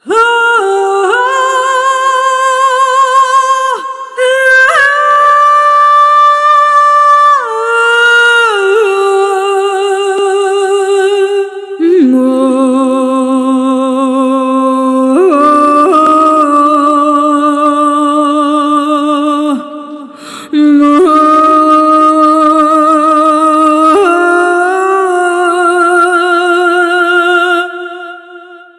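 Sampled female voice from Findasound's Clara's Vocal Kontakt library singing long wordless notes with vibrato. The notes step up and down in a slow melody, with short breaks between phrases, and the last note fades away near the end.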